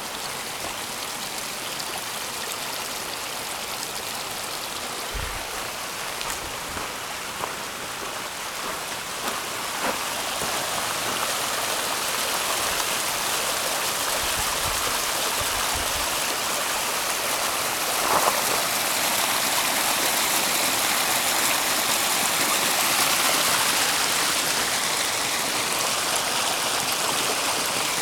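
Small mountain waterfall, water cascading over rock slabs in a steady rush that grows louder about ten seconds in and stays so.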